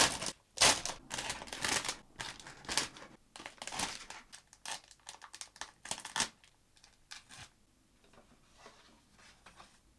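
Plastic model-kit packaging being handled: the cardboard box and its plastic-bagged runners. Rapid crinkling, rustling and scraping for about six seconds, then only a few faint rustles.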